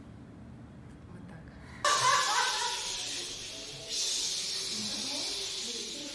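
A group of people cheering and calling out together, starting suddenly about two seconds in and swelling again about two seconds later.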